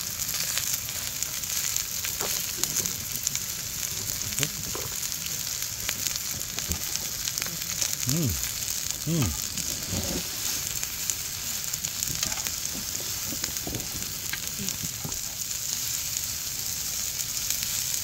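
Beef intestines (gopchang and daechang) sizzling in their own fat on a round griddle pan: a steady frying hiss with small crackles, and a couple of brief falling squeaks about halfway through.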